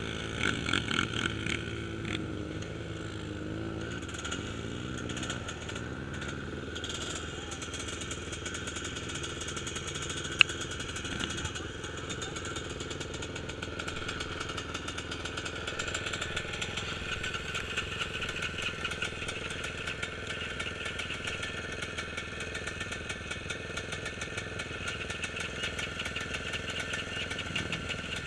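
Single-cylinder trail motorcycle engine running steadily, with a single sharp click about ten seconds in.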